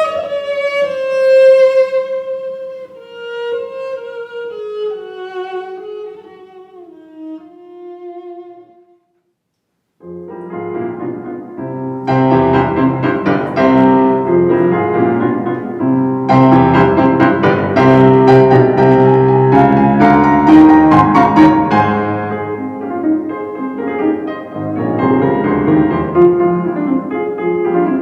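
A recording of classical chamber music. A solo violin melody slowly descends and fades away, then after about a second of silence a piano passage begins, full and resonant.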